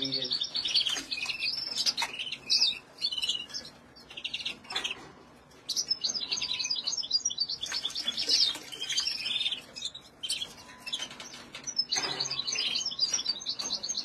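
Many caged finches, canaries and goldfinches, chirping and warbling in fast overlapping calls, with a short lull about four seconds in. A few light knocks sound as plastic drinkers are handled.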